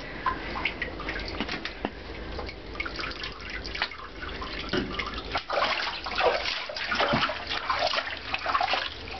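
Shallow bathwater in a tub sloshing, splashing and dripping around a ferret being bathed, in irregular small splashes that come thicker from about five seconds in.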